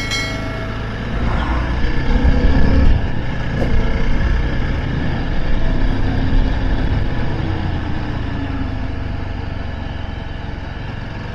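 Yezdi Adventure motorcycle's single-cylinder engine running at riding speed, with steady wind and road noise. The sound swells for a couple of seconds about two seconds in as an oncoming bus passes.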